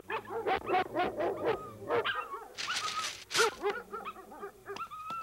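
Several cartoon dogs barking and yipping at once in a string of short, overlapping calls, with a louder noisy burst near the middle.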